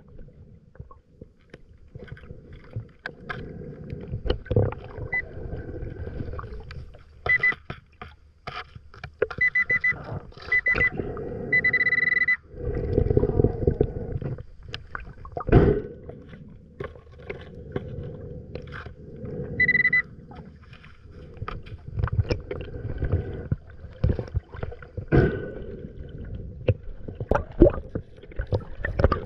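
Underwater: an underwater pulse-induction metal detector gives short high beeps, several in a row and then a longer tone about 12 s in and another near 20 s, signalling a metal target in the sand. Around them is a low rush of water with bubbling and swishing bursts as sand is fanned away by hand.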